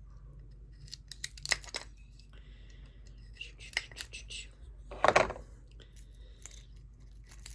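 Plastic film being picked at and peeled off by hand: scattered sharp clicks and crinkles, with one louder rustle about five seconds in.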